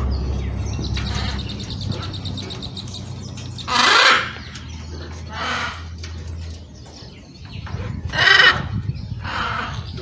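Blue-and-gold macaw squawking: four short harsh calls, the loudest about four seconds in and just after eight seconds, over a low steady hum that stops partway through.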